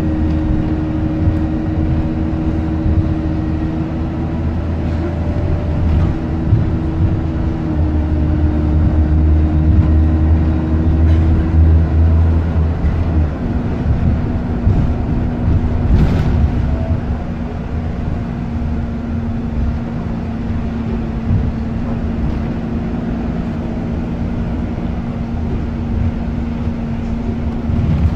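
Optare Versa single-deck bus's diesel engine and drivetrain heard from inside the passenger saloon while it drives: a heavy low hum with a steady whine under power, easing to a lighter, steadier hum with a single tone about halfway through. A brief knock comes about two thirds of the way in.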